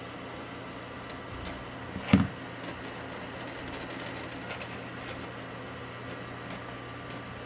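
Steady hum of a running desktop PC, with one sharp thump about two seconds in and a faint click about five seconds in.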